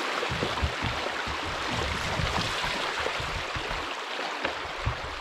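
Shallow river water rushing steadily over rocks around the canoe, with scattered low thumps and a couple of short knocks.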